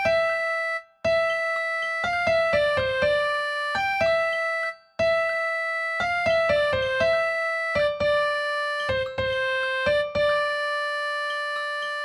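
An electronic keyboard plays a slow melody in an electric-piano-like tone. Its notes are held and stepped up and down in short phrases, with brief pauses about a second in and again near five seconds. The melody is a horoscope read as a musical score and turned into notes.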